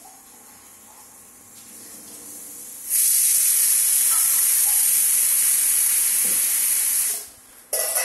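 Prestige pressure cooker whistling: steam lifts the vent weight and jets out with a loud hiss for about four seconds, showing the cooker has reached pressure. The hiss cuts out briefly and a second blast starts just before the end.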